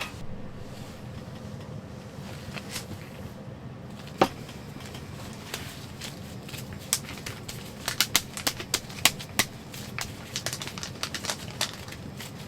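Scattered sharp clicks and light crackles over a steady low hum, with a quick run of clicks in the second half: utensils tapping on a pan while hotteok cook.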